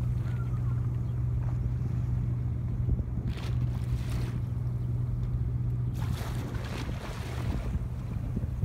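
Steady low engine hum, typical of a boat's engine running in the harbour, with two brief rushes of noise over it, about three seconds in and again about six seconds in.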